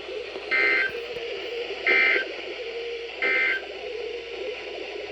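Emergency Alert System end-of-message signal: three short bursts of buzzy SAME data tones, spaced just over a second apart, marking the close of the alert. They sound over steady radio static.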